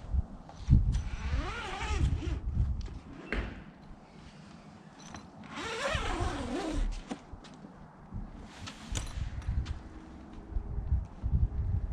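Zipper on a vehicle awning's travel cover being pulled open in two long runs, its rasp wavering in pitch, with knocks and handling of the cover in between.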